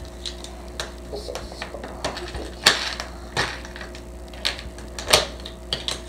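Best-Lock plastic building bricks clicking and clattering as the pieces are handled and pressed together, in irregular, scattered clicks.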